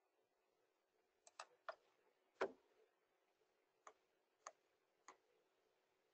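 Near silence broken by a few faint, scattered clicks, with one louder knock about two and a half seconds in.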